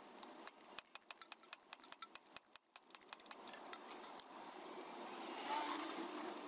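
Faint, rapid clicking of a ratchet wrench being worked back and forth on a starter motor bolt, about six or seven clicks a second for a few seconds. Then a soft rasping noise swells and fades, with a brief squeak.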